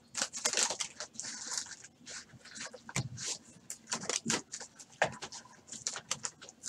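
Stack of trading cards being flipped through by hand: quick, irregular rustles and flicks of card stock sliding off the pile.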